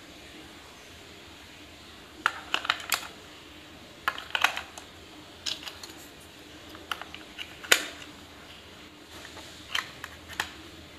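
Scattered sharp plastic clicks and rattles from a WPL D12 pistol-grip radio transmitter being handled, its battery compartment open with AA batteries in it and its cover being fitted. The clicks come in small clusters from about two seconds in, the sharpest about three-quarters of the way through.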